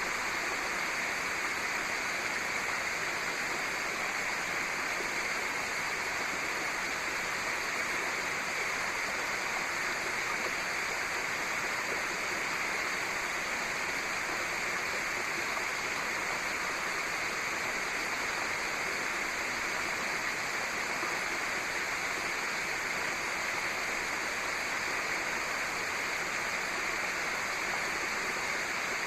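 Steady rush of running water, an even unbroken noise that neither swells nor fades.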